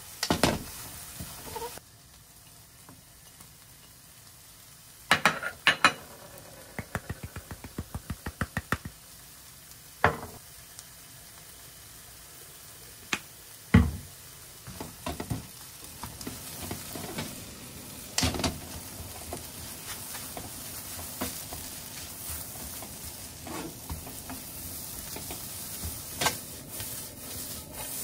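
Carrot and egg stir-fry sizzling in a non-stick wok, with a silicone spatula scraping and knocking against the pan as the food is tossed. Partway through there is a quick run of light clicks.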